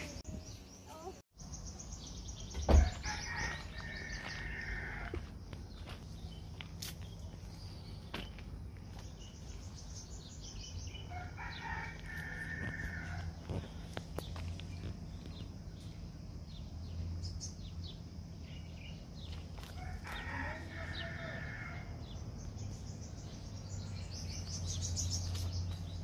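A rooster crowing three times, each crow about two seconds long and roughly eight seconds apart. A single loud thump comes just before the first crow.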